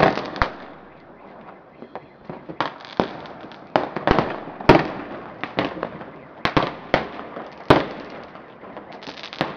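Fireworks and firecrackers going off: about a dozen sharp bangs at irregular intervals, some loud and close, others fainter, over a continuous haze of further bangs.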